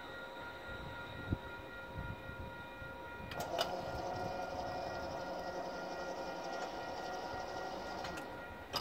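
Waterloo Ion light rail vehicle #503 running slowly, with a steady electric whine of several fixed tones. About three seconds in, a louder steady hum with a couple of clicks joins it and cuts off with a clunk near the end.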